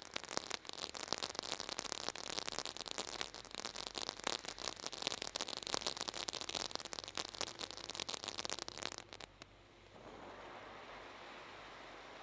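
A 200 g 'A to Z' firework fountain burning: dense, rapid crackling for about nine seconds, then, after a brief lull, a steady hiss as it sprays silver sparks.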